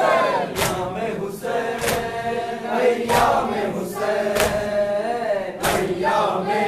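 Men chanting a noha, a Shia lament for Husain, together in a group, with sharp slaps of hands beating on chests (matam) roughly once a second.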